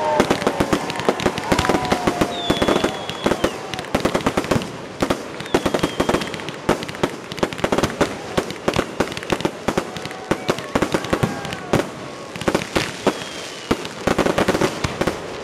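Fireworks display: aerial shells bursting overhead in a dense, rapid string of bangs, pops and crackles.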